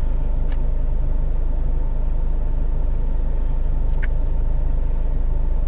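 Road noise inside a moving car's cabin: a steady low rumble of engine and tyres, with a faint click about four seconds in.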